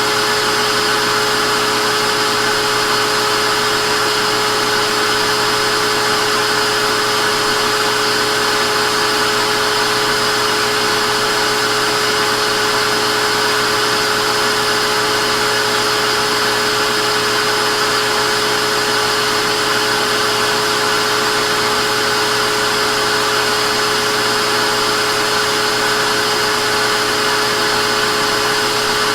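Vacuum cleaner running steadily at a constant speed: an even whooshing noise with a steady motor hum and whine, unchanging throughout.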